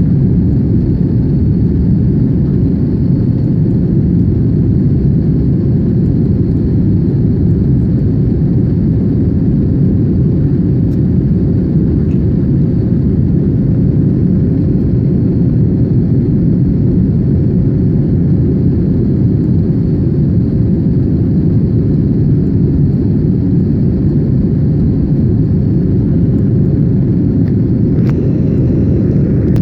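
Airbus A321neo jet engines running at steady high power: a loud, unvarying rumble with a faint steady whine above it.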